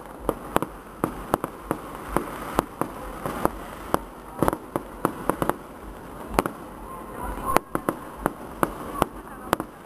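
Aerial fireworks going off: a rapid, irregular string of sharp cracks and pops, about three a second, over a steady background rumble, with one louder bang about three-quarters of the way through.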